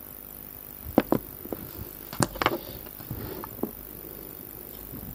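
A few light, scattered clicks and taps from a watch movement being handled in its metal movement holder. They start about a second in and are spread over about three seconds.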